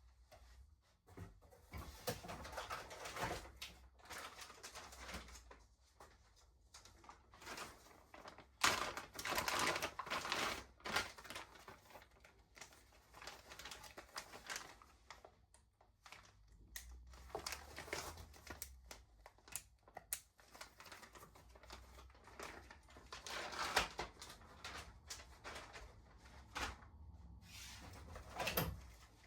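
Irregular clicking, tapping and rustling of hands working on the parts during e-bike assembly, with a few louder clattering bursts.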